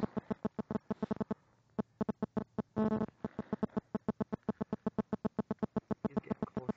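Mobile phone radio interference picked up by the recording: a rapid electronic buzzing pulse, about eight pulses a second, with a brief break about two seconds in.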